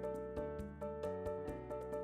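Background music: a gentle melody of pitched notes struck at an even pace, with sustained tones underneath.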